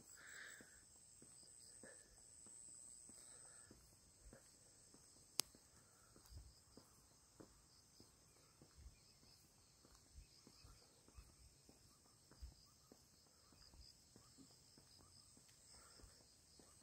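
Faint, steady high-pitched chorus of insects, with soft footsteps about once a second through the second half and one sharp click about five seconds in.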